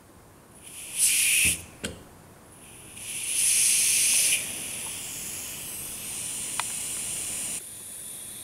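Compressed air hissing from a small pneumatic pressure regulator as its control is adjusted to balance a weighted air cylinder: a short loud burst about a second in, then a click, then a longer loud hiss around three seconds in that settles into a steadier, quieter hiss and drops near the end.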